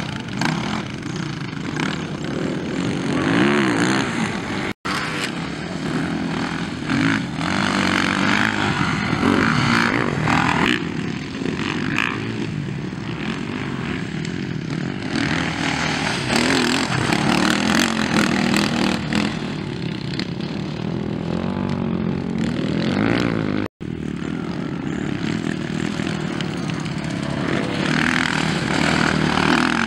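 Motocross dirt bike engines revving up and down through the throttle as the bikes ride past on a dirt track. The sound cuts out for an instant twice.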